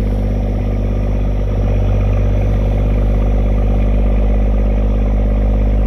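A fishing boat's engine running steadily at a constant speed, with a rapid, even pulsing.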